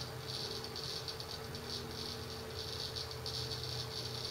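Seagate ST6000DX000 6TB 7200 RPM hard drive seeking during a random 4K read benchmark: the head actuator makes a fast rattling chatter in clusters over a steady spindle hum. This is the loud seek mode the drive falls into when gently tilted or vibrated, which the owner guesses is the servo working more aggressively to keep the read-write head on track.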